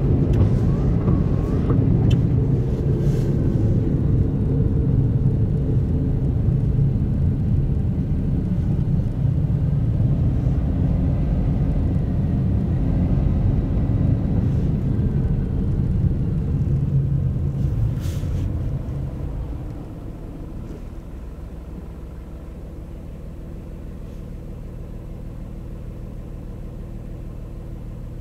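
Car driving: a steady low rumble of road and engine noise. About two-thirds of the way in it drops noticeably and settles to a quieter, steady low hum.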